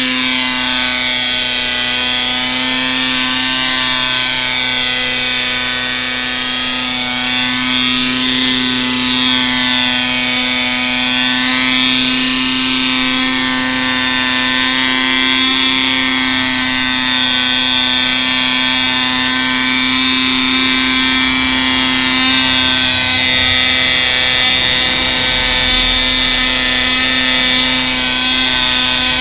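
1980 GMP Cricket model helicopter's small glow engine and rotors running steadily as it hovers: a constant buzz with a high whine that wavers up and down.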